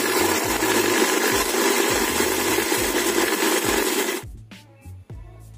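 Small electric chopper-blender running at full speed, whirring as it grinds red chillies, bird's-eye chillies, shallots, garlic and tomato into a coarse paste. The motor cuts off suddenly about four seconds in, leaving quieter background music.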